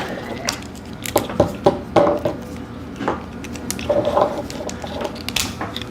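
Small plastic toy pieces clicking and clattering against each other as they are handled, in quick irregular clicks.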